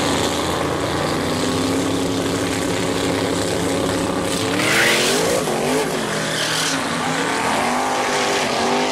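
Pro street mid-1950s Chevrolet Bel Air drag car's engine running at the starting line, then launching about five seconds in with a burst of tyre noise, its engine rising in pitch as it pulls away down the strip.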